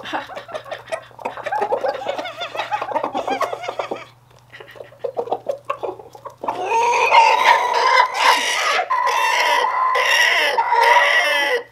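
Roosters making soft, contented clucking calls over treats, then, about six seconds in, a much louder drawn-out rooster call that pulses roughly once a second for about five seconds and stops abruptly: a frightened rooster's alarm call.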